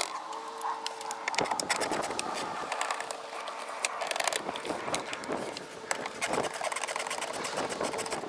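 Hand work on engine-bay parts: a dense run of irregular clicks and rattles of plastic and metal being handled, over a faint steady tone.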